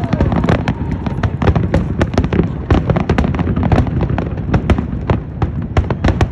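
Fireworks going off in a dense, continuous barrage of bangs and cracks, several a second, over a low rumble.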